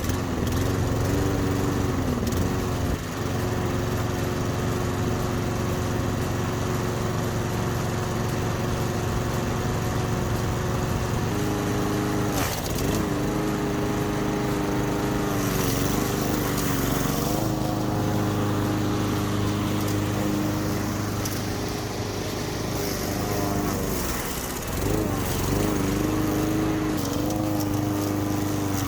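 Briggs & Stratton 5.5 HP four-stroke single-cylinder engine on a home-built lawn scalper running steadily on its first run. Its revs step up about a third of the way in, then sag briefly a few times, typical of the blades taking load as they scalp the grass.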